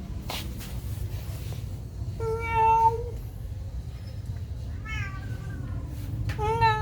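Three domestic cat meows: a loud, level meow about two seconds in, a fainter, higher sliding one about five seconds in, and another starting near the end, over a steady low hum. A couple of sharp clicks come early on.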